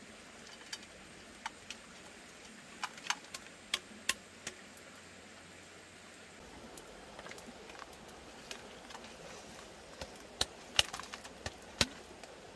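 Irregular sharp taps and clicks of a bamboo tube knocking against a metal frying pan as palm grubs are tipped out of it, the loudest few near the end.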